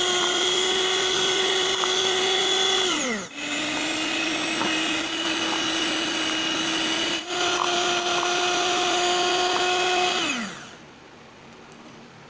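Electric hand mixer whipping dalgona coffee foam in a plastic bowl: a steady motor whine. About three seconds in it winds down and picks up again at a slightly lower pitch, cuts out briefly a few seconds later, and returns to the higher pitch. It then winds down and stops about two seconds before the end.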